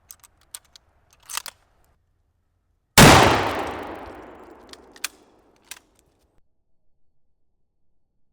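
A single shot from a Mosin-Nagant rifle (7.62×54R) about three seconds in, a loud crack whose echo dies away over two to three seconds. A few small clicks come before the shot and two more after it.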